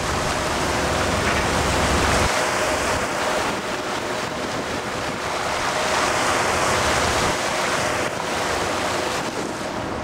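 Strong wind buffeting the microphone over rough sea, with the wash of waves. The heavy low rumble of the wind eases about two seconds in, and a faint steady hum runs underneath.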